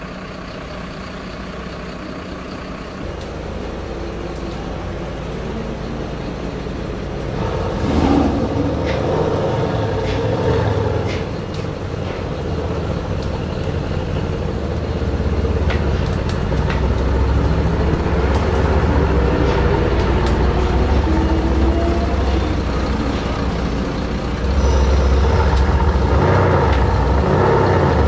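Brabus 650's 4.0-litre biturbo V8 running with a low-pitched sound, growing louder over the first several seconds. It surges about eight seconds in and steps louder again near the end.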